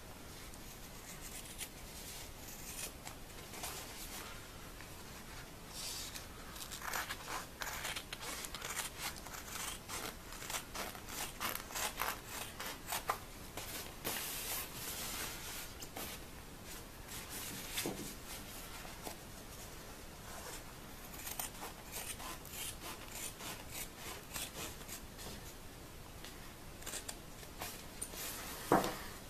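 Scissors snipping through the seam of a quilted, padded nylon anorak to cut the hood off: a long run of short, crisp snips in uneven bunches, starting a few seconds in, with fabric rubbing and a louder snip near the end.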